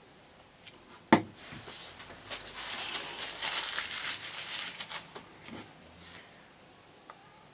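Hand work on a drill's gearbox during reassembly: a sharp knock about a second in, then about three seconds of crinkly rustling.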